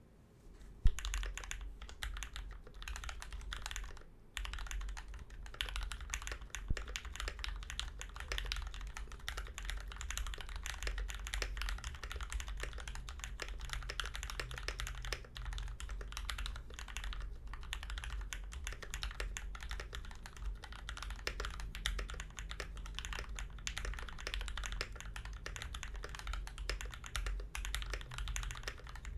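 Continuous fast typing on an aluminium-cased NK65v2 mechanical keyboard with lubed Gateron Black KS-3 linear switches and PBT keycaps, a dense run of key clacks with a brief pause about four seconds in. A steady low hum sits underneath.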